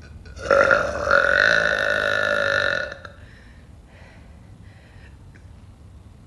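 A woman's long, loud burp, starting about half a second in and running about two and a half seconds, with a brief dip near its start before it carries on at a steady pitch.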